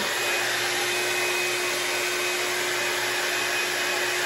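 Hot air brush dryer running steadily: an even rush of blowing air with a steady motor hum under it.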